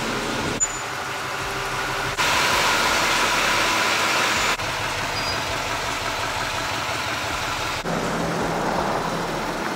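Duramax 6.6-litre V8 turbo-diesel of a GMC Sierra 3500 Denali dually idling and running. The sound is a string of short clips, changing abruptly about four times.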